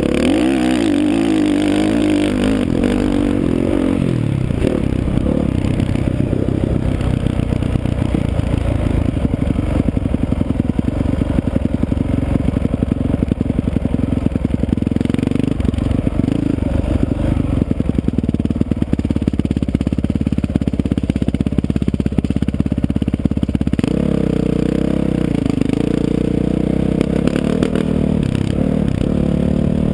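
Dirt bike engine running hard while riding a motocross track, heard from the rider's helmet camera. Its pitch rises and falls in the first few seconds and again near the end, and between those stretches it is a rough, steady rattling drone.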